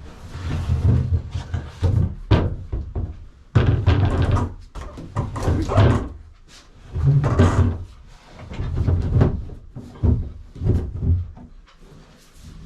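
Repeated irregular thuds and knocks of water tanks and wooden ribs being shifted and bumped into place.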